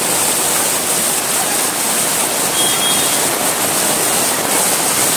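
Heavy rain pouring down onto a flooded street, a loud, steady hiss of water.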